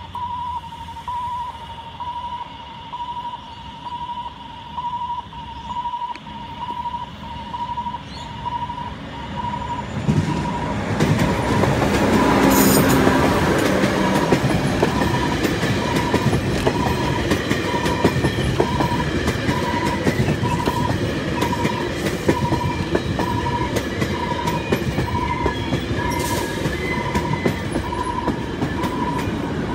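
Level crossing warning bell ringing in steady pulses, about one and a half a second. From about ten seconds in, a long-distance passenger train passes over the crossing, its wheels rumbling and clacking over the rail joints, while the bell keeps ringing under the noise.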